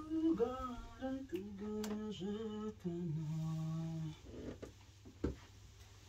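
A woman humming a slow tune of a few long held notes, stopping about four seconds in. A single soft knock about a second later.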